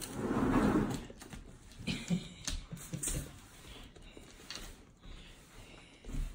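An adult dog and two puppies playing on a wooden floor: light scattered tapping and scuffling of paws and claws. A short breathy rush of noise comes in the first second.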